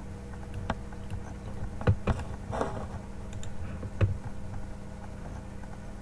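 A few scattered clicks of a computer mouse and keyboard, about four sharp ones in the space of a few seconds, over a steady low hum.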